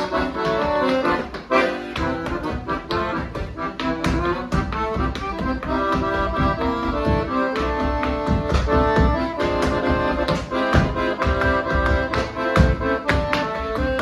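Piano accordion playing a tune, with frequent sharp taps of a dancer's feet striking the floor in time.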